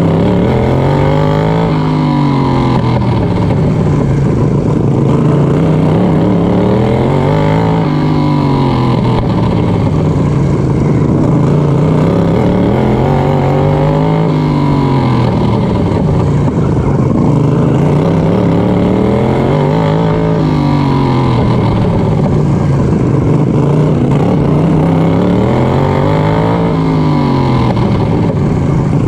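Racing lawnmower's engine under hard throttle, its pitch climbing and dropping five times, about once every six seconds, as it speeds up and slows around a short dirt oval.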